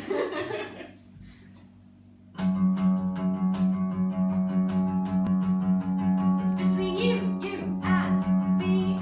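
Acoustic guitar strummed in a steady rhythm, starting about two and a half seconds in after a short pause; a voice is heard briefly at the very start.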